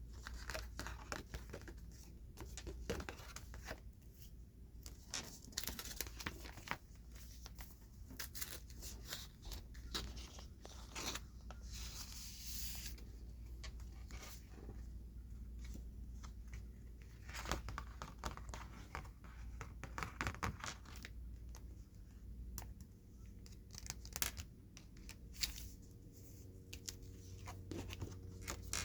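Jumbo Pokémon cards and their plastic packaging being handled: scattered taps and clicks with crinkling, and a longer rustling scrape about twelve seconds in.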